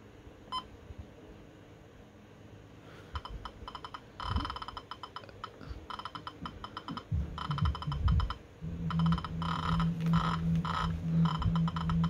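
A single short key beep from a First Alert WX-167 weather alert radio about half a second in as a front button is pressed, followed from about three seconds by faint, choppy audio that grows louder after about seven seconds.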